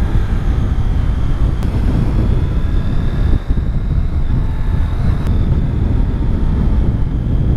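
Steady wind rush and engine noise from a Triumph Street Triple S motorcycle riding along at road speed, the wind buffeting the rider's camera microphone. Two faint clicks break through the roar.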